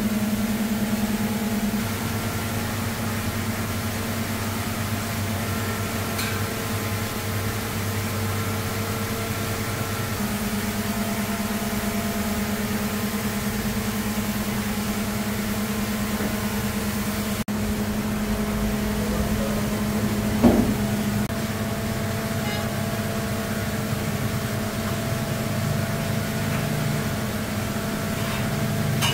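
Steady mechanical hum of kitchen machinery, with a few low fixed tones whose mix changes a few times. One short knock about twenty seconds in.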